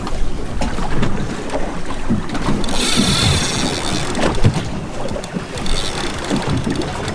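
Wind rumbling on the microphone over sea noise around a small boat, with a brief high hiss about three seconds in.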